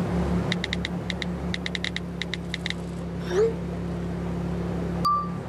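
Phone-messaging sound effects: a quick run of keyboard taps, then a short rising swoosh as the message is sent, and a single short notification ping near the end, over a low steady hum.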